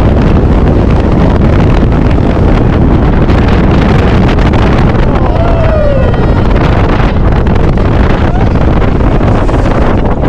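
Loud, steady rush of wind buffeting the microphone, with low rumble, while riding the Cheetah Hunt launched roller coaster at speed.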